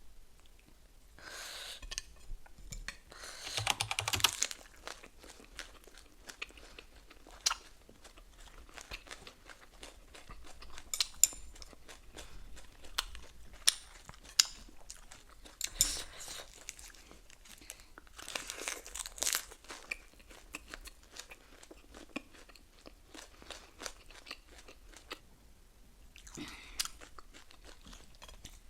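A person eating ramen with pork and lettuce up close to the microphone: irregular chewing and crunching, with a few longer noisy bursts of eating sound and several sharp clicks.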